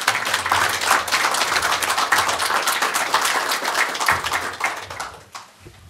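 Audience applauding after a speech, a dense patter of clapping that thins out and dies away about five seconds in.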